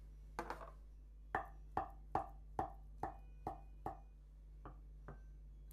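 Kitchen knife chopping hard-boiled egg white on a bamboo cutting board: a couple of light knocks, then seven even chops about two a second, then two fainter ones near the end.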